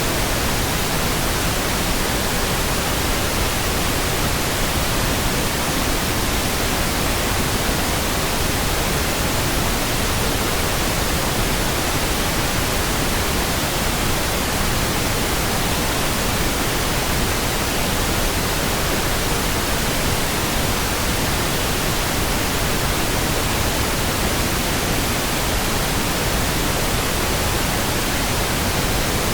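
Steady pink noise: an even, unchanging hiss spread across all pitches, with no music, voice or sudden sounds.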